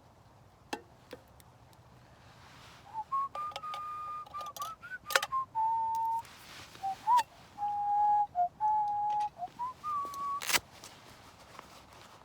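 A person whistling a slow tune of held notes that step down and up in pitch, with a few sharp clicks between the notes.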